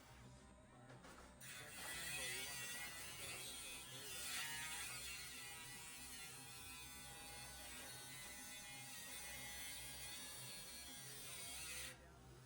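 A handheld electric power tool runs on the car's body metal for about ten seconds, its pitch wavering as it is worked. It starts about a second and a half in and cuts off suddenly near the end.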